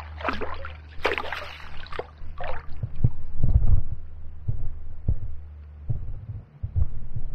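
Water splashing as a barbel swims out of a landing net held in the river, followed by dull low thumps as the net is handled and lifted from the water.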